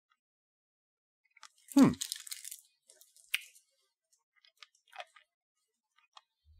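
Hard candy being sucked and crunched in the mouth: a short noisy crunch about two seconds in, just after a brief falling vocal sound, then scattered small clicks of the candy against the teeth.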